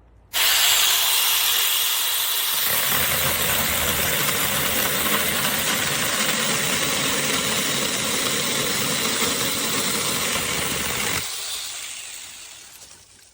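Cordless electric mini chainsaw starting abruptly and running at speed with a high whine. A lower, rougher layer joins about two and a half seconds in and stops about eleven seconds in, then the saw winds down and fades out.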